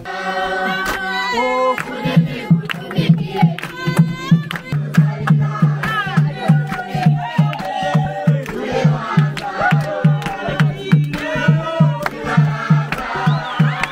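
Congregation singing together, with a homemade drum coming in about two seconds in and beating a steady, quick low rhythm, and hands clapping along.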